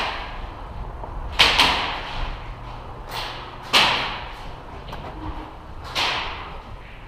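Airsoft gunfire in a large echoing hall: five sharp cracks at uneven spacing, two pairs close together and a last one near the end, each ringing on briefly.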